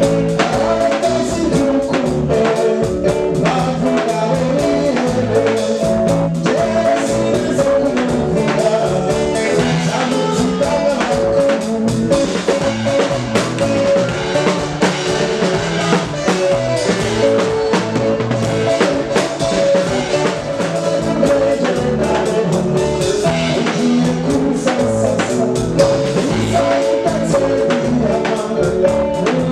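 Live band playing a song with drums, bass guitar, electric guitar and keyboard, and a man singing lead into the microphone over a steady beat.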